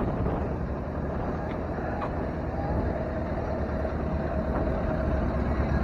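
Antique truck's engine running as it drives slowly up, a steady low rumble, with a faint steady whine from about two and a half seconds in until near the end.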